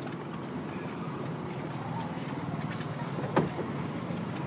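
Street-stall background: a steady low rumble with scattered light clicks, and one sharp knock about three and a half seconds in.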